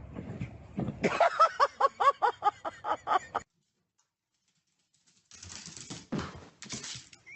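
An animal giving a quick run of about a dozen short pitched calls, some four or five a second, each rising and falling, which cut off abruptly; after a brief dead silence, scattered noisy sounds follow.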